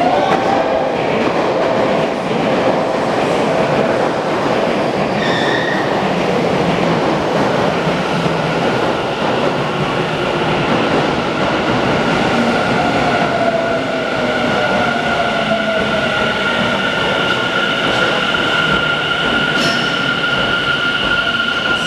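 Tobu 50070-series electric train running into an underground station platform and slowing down: a steady rumble of wheels on rail, with a steady high whine setting in about halfway through as it brakes.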